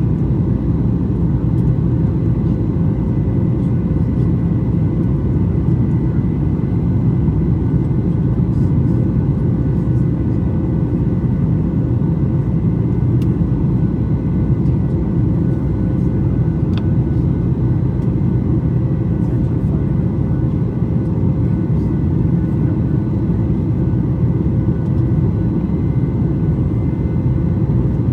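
Steady cabin drone of a Boeing 737 MAX 8 with its CFM LEAP-1B engines running, heard from inside the cabin: a deep, even rumble with a few faint steady whining tones above it.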